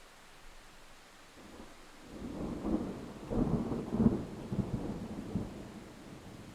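A roll of thunder over a faint hiss of rain: a rumble builds about two seconds in, cracks and rolls through several peaks, loudest near the middle, then dies away.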